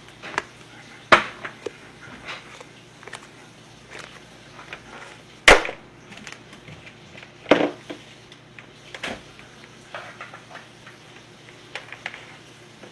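Irregular knocks and clunks of objects being handled and set down on a hard surface, the loudest about a second in, at five and a half seconds and at seven and a half seconds, over a steady low room hum.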